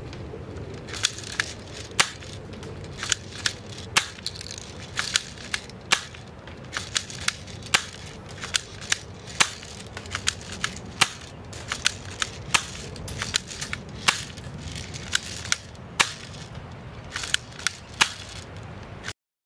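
M74DP mini AEG airsoft BB gun firing a long series of single shots, sharp snaps at irregular spacing, about two a second. The shots stop suddenly near the end.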